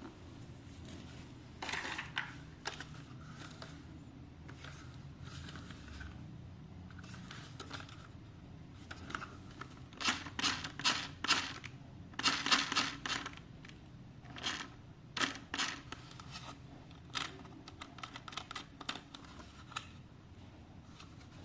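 Hands handling plastic toy parts and packaging: irregular clicks, taps and rustling, coming in quick clusters around the middle and later on.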